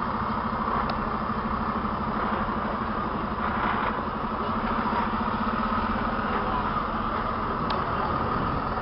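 Diesel engine of a large army cargo truck running at low speed as the truck rolls slowly past, a steady low throb.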